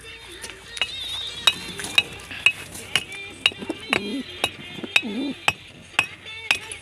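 Domestic pigeons cooing in their loft, a low wavering coo about four seconds in and again a second later, over a regular sharp ticking about two times a second.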